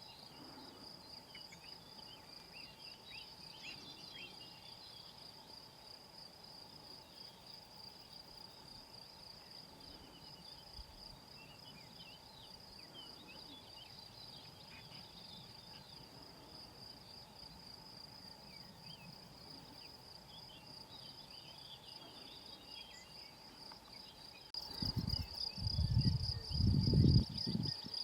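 Steady, high-pitched chorus of insects stridulating in tall grass, with faint scattered bird chirps. About twenty-four seconds in, a louder low rumble comes in and runs for a few seconds.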